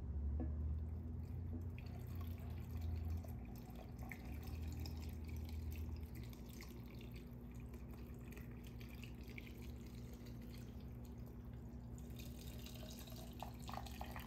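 Hot sugar syrup poured slowly from a pot into a glass jar packed with apples: a quiet trickle and drips of liquid, with a low rumble that eases off about six seconds in.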